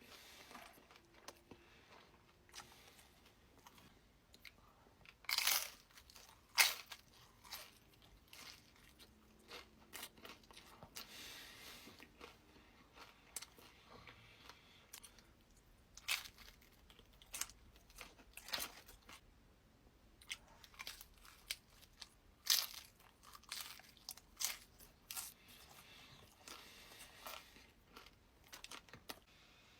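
Close-miked mukbang eating: crunchy bites and chewing, with sharp crunches at irregular intervals every few seconds and quieter chewing in between.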